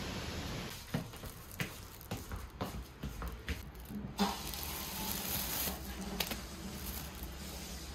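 Plastic bags crinkling and rustling as a box of packed cabbage and noodles is opened, in irregular crackles. In the first second, a steady hiss of rain.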